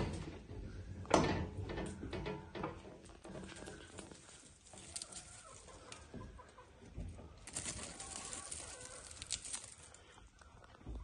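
Chickens clucking, with a sharp knock about a second in and a stretch of rustling near the end.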